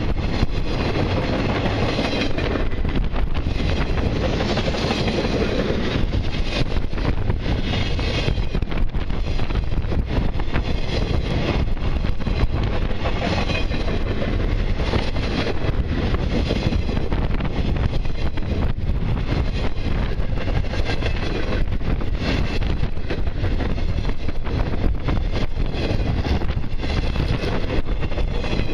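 Cars of a long intermodal freight train rolling past close by: a steady rumble of steel wheels on rail with rapid clacking over the joints.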